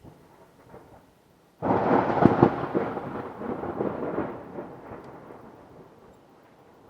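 A clap of thunder about one and a half seconds in: a sudden sharp crack with crackling strikes, then a rumble that rolls on and slowly fades over the next few seconds.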